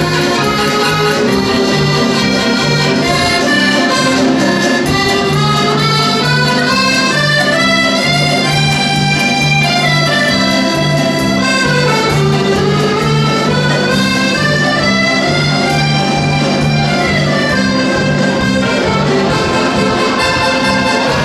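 An accordion ensemble playing a dance tune, with melodies climbing and falling over a steady, pulsing bass line.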